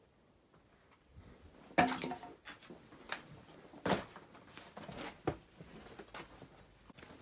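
A few scattered knocks and scuffs from footsteps and handling while walking through a cluttered office, the loudest about two seconds in and two more a couple of seconds apart.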